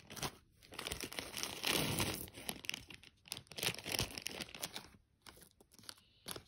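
Small plastic hardware bag of screws crinkling as it is handled and opened and the screws emptied out, with a few small clicks. The crinkling is busiest in the first few seconds and dies down near the end.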